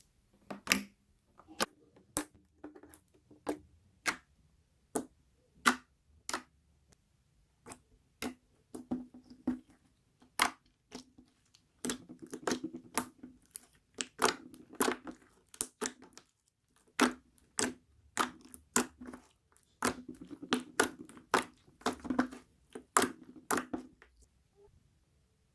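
Slime being squished and pressed by hand, giving off irregular sharp clicks and pops, with denser crackling stretches midway and near the end.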